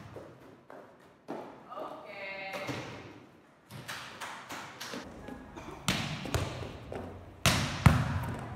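Volleyball drill: repeated sharp thuds of the ball striking hands and arms and bouncing on the sport-court floor, the loudest near the end as a ball is dug. About two seconds in comes a brief high sneaker squeak.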